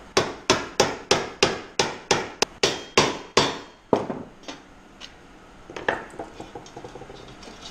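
A hammer striking a screwdriver held against a thin metal fuel pump bracket: about a dozen sharp blows at roughly three a second, each with a short metallic ring, driven to enlarge the bracket's hose-clamp cutouts. The blows stop about four seconds in, followed by a few light clicks of tools being handled.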